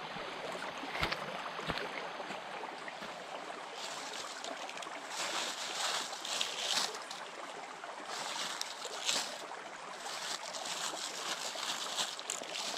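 Shallow stream water running over stones: a steady rushing, louder now and then.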